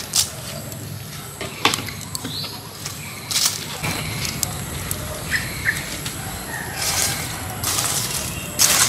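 Burning charcoal fire with scattered sharp crackles and a few short bird chirps. In the last two seconds there are three crunching strikes as a hatchet breaks up the burning charcoal.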